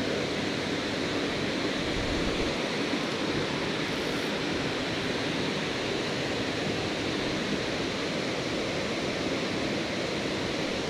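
Steady rushing of a waterfall pouring into its plunge pool.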